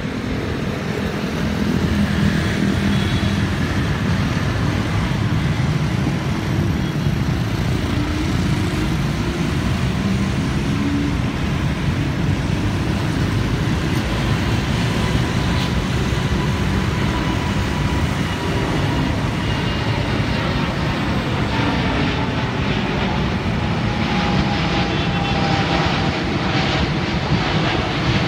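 Airbus A350-900's twin Rolls-Royce Trent XWB turbofans at takeoff thrust as the jet climbs out overhead: steady loud jet noise with whining tones that slide slowly down in pitch as it passes.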